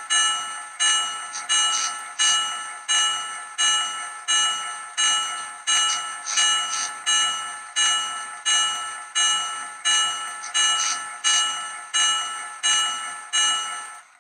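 Locomotive bell sound effect from a Digitrax SDXH167D sound decoder, played through a small sugar-cube speaker in an HO-scale Proto 2000 SD9 model diesel: steady ringing strikes, about three every two seconds, each ringing on into the next, cutting off suddenly at the end.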